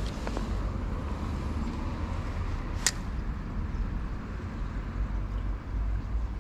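Low, uneven outdoor rumble with a hiss above it, and one sharp click about three seconds in.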